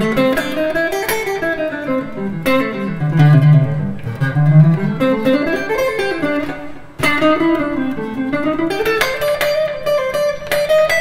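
Squier Stratocaster electric guitar playing the A blues scale in single-note runs, climbing and falling several times, then settling on a held high note near the end.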